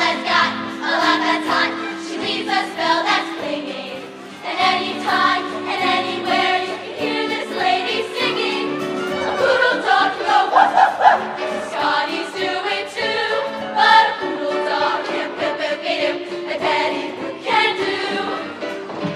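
Show choir singing in harmony with band accompaniment.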